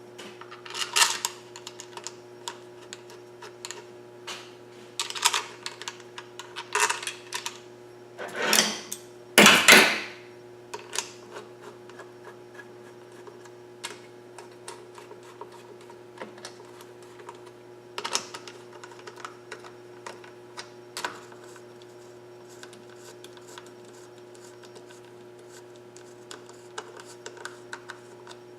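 Small metal parts and hand tools clicking and clattering as an outboard lower unit's water pump is assembled, with a louder scraping noise lasting about a second and a half around nine seconds in. A steady electrical hum runs underneath.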